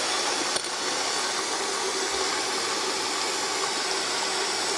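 Bosch SKT5102EU dishwasher filling with water through its open inlet valve: a steady rushing hiss with a faint constant hum underneath.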